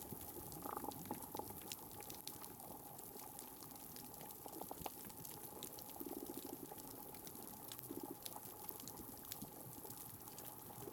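Underwater coral-reef ambience through a hydrophone: the steady crackle of snapping (pistol) shrimp, many sharp clicks over a constant hiss. There are two short low buzzing pulses about six and eight seconds in.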